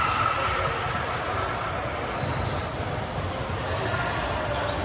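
Echoing sports-hall ambience: a ball being bounced or hit, with distant voices in the hall.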